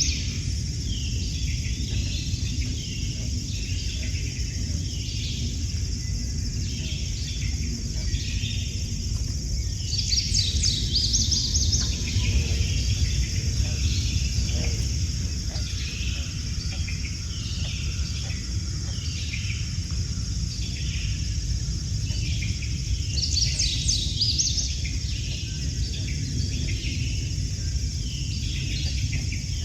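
A chorus of frogs calling, short calls repeating about once a second over a steady high hum. Louder rapid trills come three times: at the start, about ten seconds in, and a little past twenty seconds. A low rumble runs underneath.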